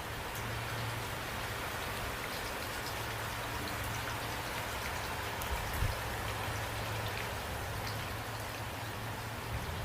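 Steady rain, an even hiss with scattered drops ticking on a surface and a low rumble underneath; a soft thump about six seconds in.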